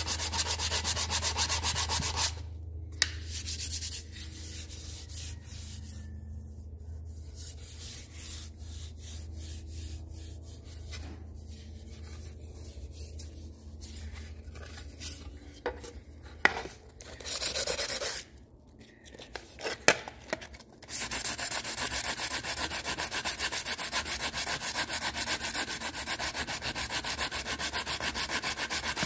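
Hand sanding an aluminum car seat molding: sandpaper on a small wooden block rubbed rapidly back and forth over the metal. The strokes go quieter and sparser after about two seconds, with a few light knocks, and pick up again steadily for the last third.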